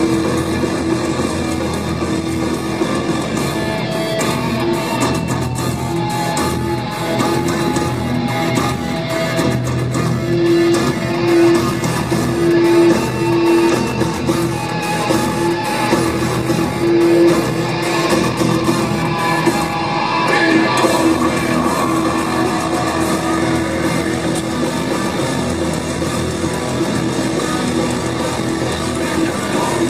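A rough demo of a rock song, led by guitar.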